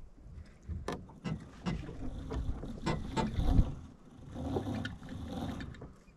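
Water sloshing and lapping against a Sunfish sailboat's hull as it is walked through shallow water, with irregular knocks and taps on the hull.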